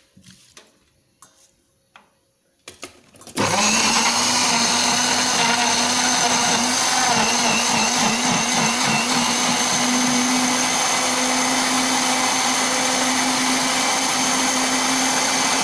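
Electric kitchen blender switched on about three seconds in, then running steadily as it grinds chilies, garlic and shallots into a spice paste. A few light knocks come before it starts.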